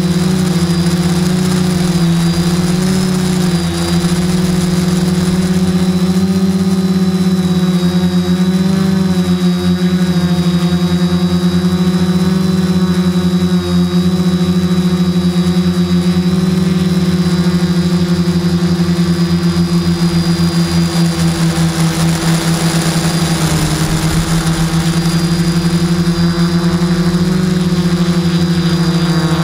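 Q450 quadcopter's four electric motors and propellers buzzing steadily, heard up close from the camera mounted on the drone. The pitch wavers slightly as the motor speeds adjust in flight.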